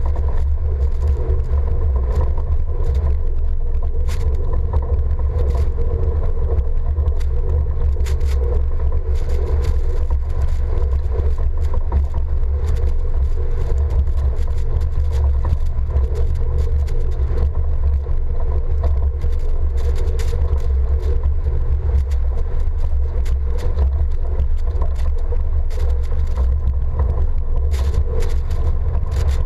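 A truck driving through deep snow: a steady low rumble of engine and road noise with a constant hum, and scattered sharp ticks of spraying snow striking the side-mounted camera.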